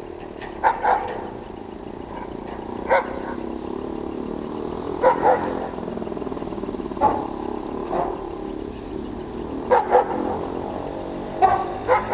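A dog barking in short sharp barks, singly and in quick pairs, about a dozen times, over the steady hum of a running machine engine.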